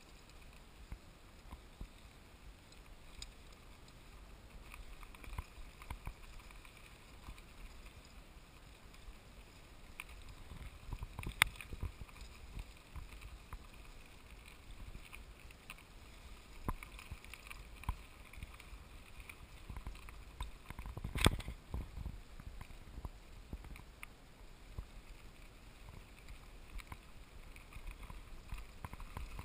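Bicycle rolling over a rocky dirt trail, heard from a camera riding along: a steady low rumble with scattered rattles and clicks, and two sharp knocks, about eleven and twenty-one seconds in, as the bike jolts over bumps.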